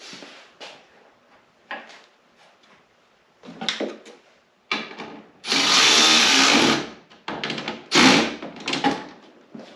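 A handheld power drill running in one burst of just over a second, about halfway through, among scattered knocks and clatter of parts and tools being handled.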